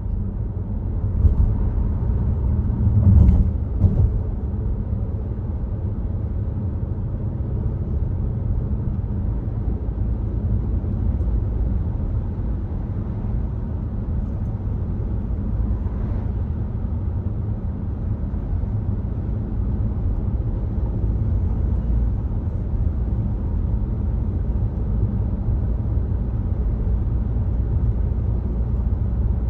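Volvo XC60 driving at steady speed: a continuous low road and tyre rumble, with two short knocks about three and four seconds in.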